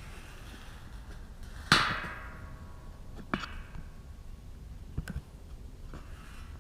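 Scrap steel being knocked or struck: four separate metallic clanks, the loudest about two seconds in with a short ringing tail, then two lighter knocks and a faint one near the end.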